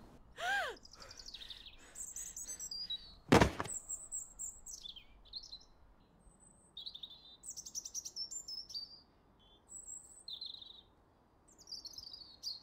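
Songbirds singing in short, high, thin phrases and chirps with pauses between them. A short lower call that rises and falls comes about half a second in, and a single loud thump about three and a half seconds in.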